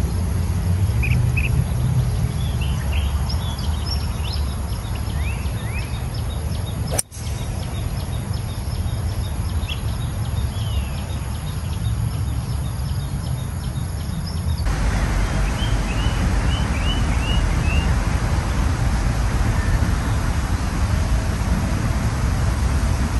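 Birds chirping over a steady low wind rumble on the microphone, with one sharp click about seven seconds in: a 7-wood fairway wood striking a golf ball.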